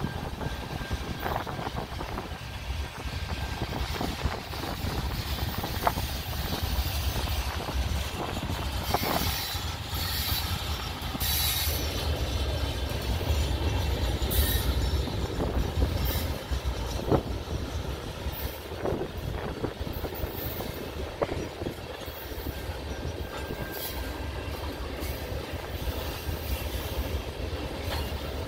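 Freight train tank cars and coil cars rolling past: a steady low rumble with scattered sharp clicks and clanks of the wheels on the rails.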